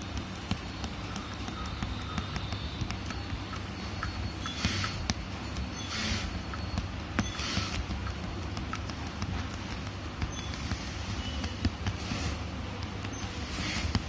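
Hand embroidery: a needle and gold metallic thread drawn through taut fabric, giving a few short swishes among light ticks and taps, over a steady low hum.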